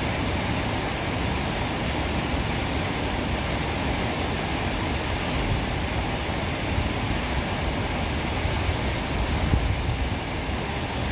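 Steady rushing road and wind noise of a car being driven, with a heavy, uneven low rumble.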